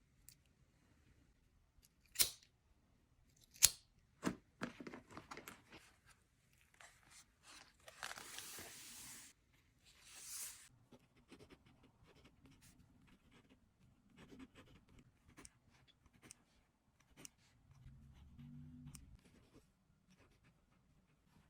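Pen packaging being opened: soft tearing and rustling in two short bursts midway, among scattered sharp clicks and taps.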